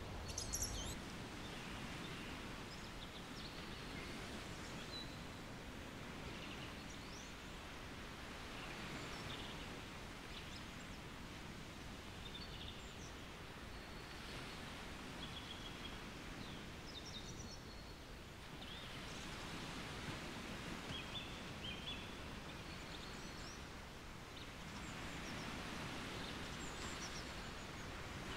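Pine forest ambience: birds chirping now and then in short high calls over a steady rushing background of wind in the trees and distant sea surf, which swells a little in the last few seconds.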